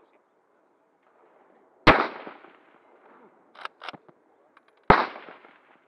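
Vektor H5 .223 Remington pump-action rifle firing two shots about three seconds apart, each with a short echoing tail. Between the shots come two sharp clacks of the pump being worked back and forward, ejecting the spent case and chambering the next round.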